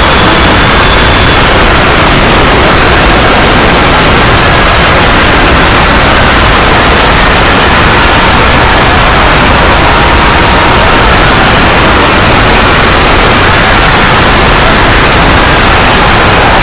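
Very loud, steady, static-like rushing noise that fills every pitch without a break, with a few faint whistling tones buried in it.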